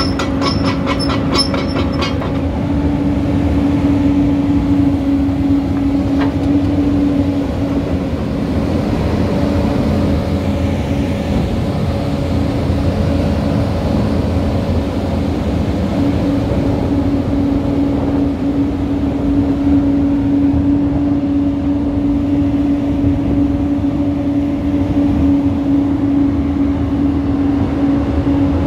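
Caterpillar 320DL excavator's C6.4 diesel engine idling steadily, a constant low hum over a rumble. A fast, high-pitched pulsing ticks over it for the first two seconds.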